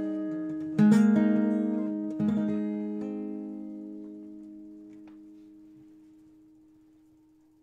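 Acoustic guitar: a chord struck about a second in and another just after two seconds, then the last chord left to ring and slowly die away as the song ends.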